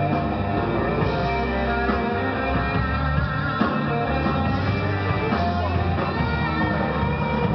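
Live rock band playing electric guitars over a drum kit, with low bass notes held for about a second at a time.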